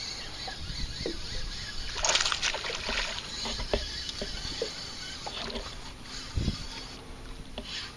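Water sloshing and splashing against a small fishing boat, with a louder splash about two seconds in and a low knock about six and a half seconds in, while a hooked largemouth bass is fought on a spinning rod.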